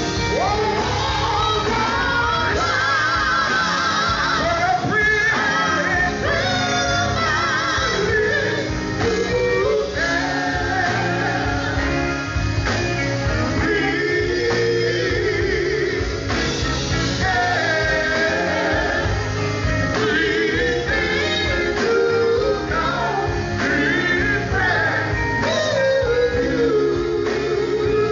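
Male gospel quartet singing live with a full band of electric guitars, bass, drums and keyboards; the lead voice sings with a strong, wavering vibrato.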